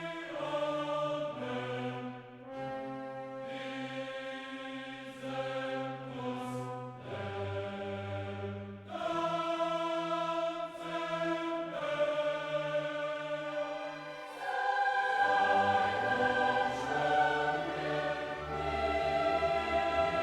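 Background music with slow, sustained chords that change every second or two, growing louder about fifteen seconds in.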